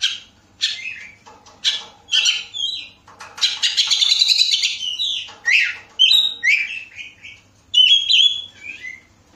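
Oriental magpie-robin singing loudly: a run of varied whistled phrases, a rapid harsh rattling phrase about three seconds in that lasts about a second and a half, then sliding whistles. The song stops shortly before the end.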